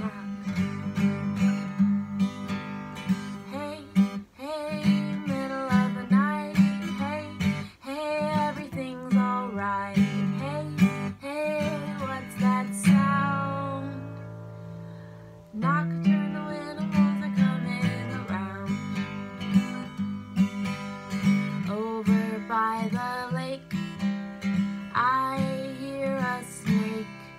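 Acoustic guitar strummed with a woman singing over it. About halfway through, the strumming stops and one chord is left to ring and fade for a couple of seconds before the song starts again.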